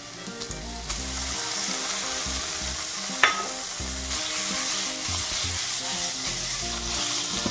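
Thinly sliced pork belly sizzling in oil with carrot and onion in a frying pan over medium heat, stirred with a silicone spatula. The sizzle swells about a second in as the pork spreads over the hot pan, and a single sharp tap comes a little past three seconds.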